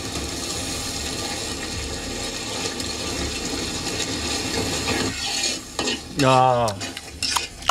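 Chili paste masala frying in a large wok, sizzling steadily as it is stirred with a ladle. About six seconds in a brief voice sound is heard, followed by a few light clicks.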